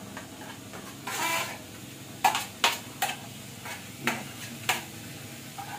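Steel spoon scraping chopped tomatoes off a steel plate into a steel kadhai: a short scrape about a second in, then about five sharp metal clinks as the spoon taps against the plate and pan.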